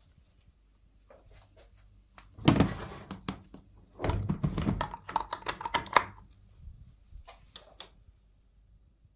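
A series of knocks and clatter: a loud scraping rattle about two and a half seconds in, then a stretch of quick clattering clicks and knocks, with scattered light clicks before and after.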